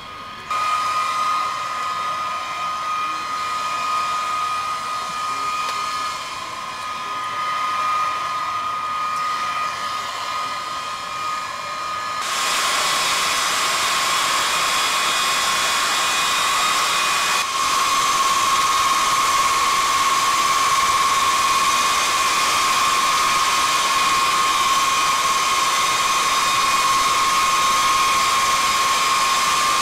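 Jet turbine whine on the flightline, a steady high tone over a rushing hiss. The sound gets louder and brighter about twelve seconds in.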